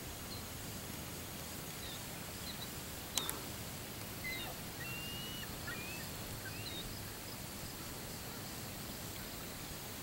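Steady low outdoor background noise with faint, short, high chirps of small birds, some gliding up or down, clustered between about four and seven seconds in. A single sharp click a little over three seconds in is the loudest sound.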